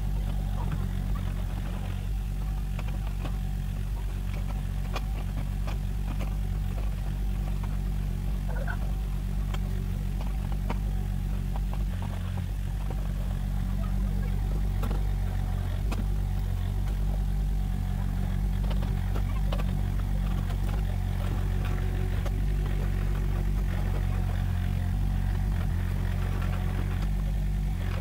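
Mini excavator's engine running steadily while it grades dirt, with scattered clanks and clicks over the engine note.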